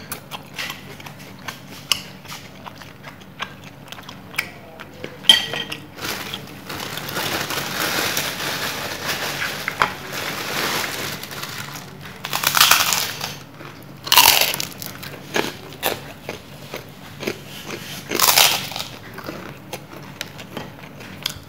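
Close-up eating sounds: a run of loud crunchy bites into crisp kerupuk crackers, several separate crunches, with chewing and light clicks between them.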